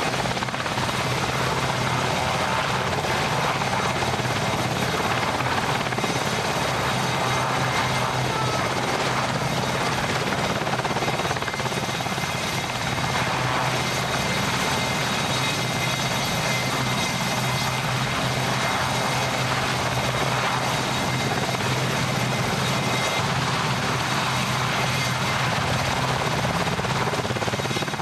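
A steady engine drone: a constant low hum under a dense, even rushing noise that holds unchanged throughout.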